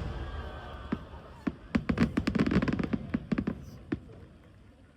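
Fireworks: the echoing rumble of a big shell burst fades, then a rapid run of sharp crackling pops goes on for about two seconds, with one last pop near the end.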